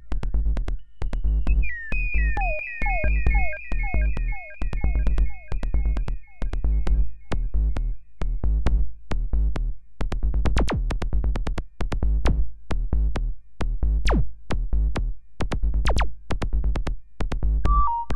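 A Eurorack modular synthesizer plays a looping electronic pattern: a deep, kick-like bass pulse with clicking percussion. Short falling pitched blips run over roughly the first half, and a quick high two-note melody comes in near the end.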